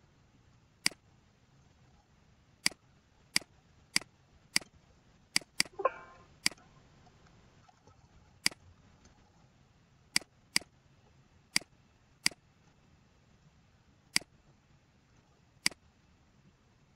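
Computer mouse button clicking: about fifteen single sharp clicks at uneven intervals. A brief pitched, squeak-like sound comes about six seconds in.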